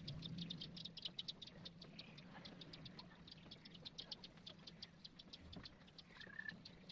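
Faint scratching of a colored pencil on paper in quick, even shading strokes, about eight a second, over a low steady hum.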